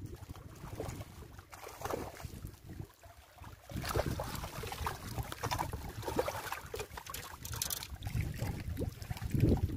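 Water splashing and lapping against a rocky shore, louder from about four seconds in as a hooked fish thrashes at the surface close to the rocks, over a steady rumble of wind on the microphone.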